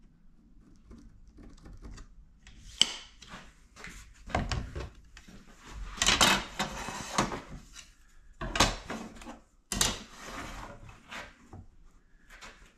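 A tool being handled and drawn across a wooden tabletop while its corners are marked out for cutting: a sharp tap about three seconds in, then several short scraping strokes on the wood.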